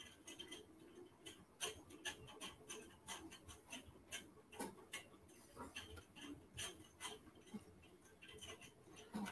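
Near silence broken by faint, irregular small clicks and ticks, a few a second.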